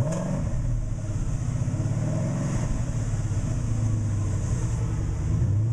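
2011 Mustang GT's 5.0-litre V8 running through a newly installed Corsa X-pipe exhaust, just after start-up. The revs flare briefly at first, then settle into a steady idle.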